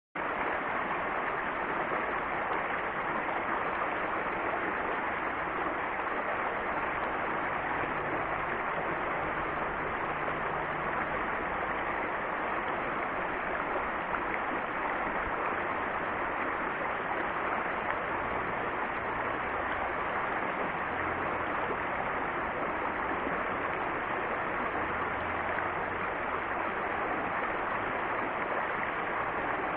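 Creek water flowing, a steady even rush.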